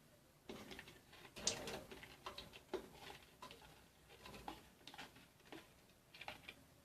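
Faint, scattered taps and light patters of chopped onion being tipped into a pressure cooker, with small clicks of handling the pot and utensils.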